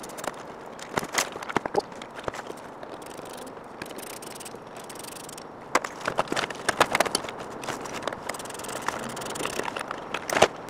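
Irregular plastic clicks and knocks as the interior door panel of a Lexus SC is pried and pulled off the door, with a quick run of sharper snaps about six to seven seconds in and one more loud knock near the end.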